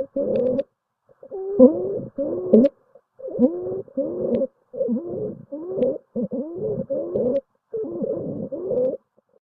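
Stridor: a rapid series of short, pitched, crowing breath sounds, each about half a second long, with wavering pitch. It is the sign of a narrowed upper airway.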